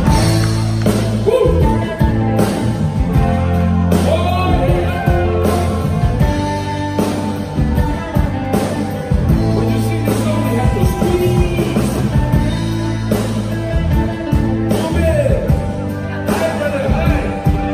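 Live band with electric bass, drums and keyboard playing a song while a man sings into a handheld microphone.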